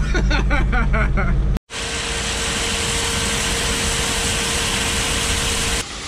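Pickup truck engine idling, heard from inside the cab. After about a second and a half it gives way to a grain bin aeration fan running: a steady loud rushing with one steady tone in it, which cuts off near the end.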